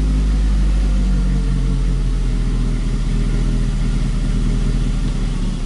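Ford Focus engine and road noise heard inside the cabin while driving at a steady speed: a loud, even low rumble with a steady engine hum, the engine running without misfires.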